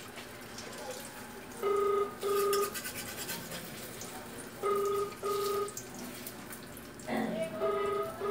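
A double-beep electronic ring tone, two short beeps about every three seconds, three pairs in all. Under it, an egg sizzles in oil in a wok while a metal spatula scrapes the pan.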